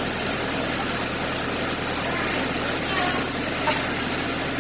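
Tractor engine idling steadily, a constant low hum with a fast even pulse.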